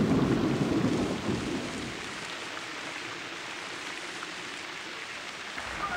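Thunder rumbling and dying away over the first two seconds, leaving a steady hiss of rain.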